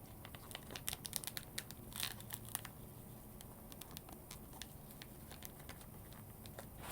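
Packaging being worked open by hand: faint crinkling with scattered small clicks and crackles, busiest in the first couple of seconds and sparser after.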